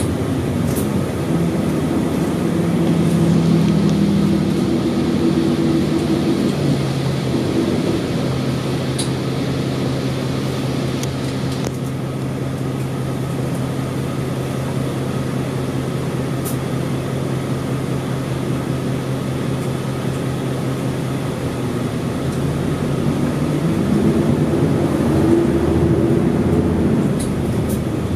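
Isuzu Erga city bus's V8 diesel engine heard from inside the cabin: the engine note shifts as the bus moves off, settles into a steady idle hum for about fifteen seconds, then climbs again near the end as the bus pulls away.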